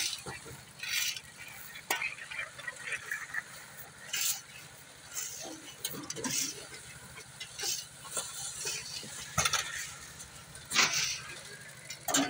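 Concrete mixer running steadily with a low, even rumble. Gravel is shovelled and tipped into its loading hopper, making short scraping and rushing noises every second or two.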